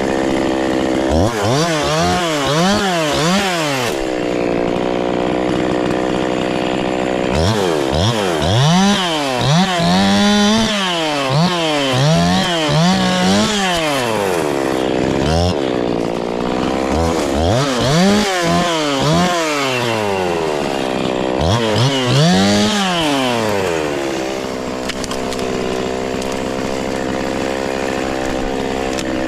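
Two-stroke chainsaw engine revved up and down over and over, each rise and fall lasting about a second, between spells of steady idle; it settles back to idle near the end.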